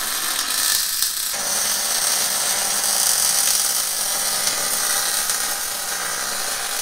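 Handheld grinder running steadily against steel, cutting away a misplaced tack weld.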